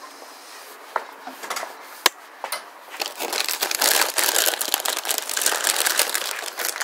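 Close rustling and crinkling, with two sharp clicks about one and two seconds in, then a denser crackling rustle from about three seconds in.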